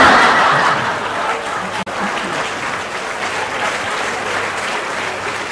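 Live audience applauding, loudest at the start and then settling to a steady clapping. There is a brief dropout about two seconds in.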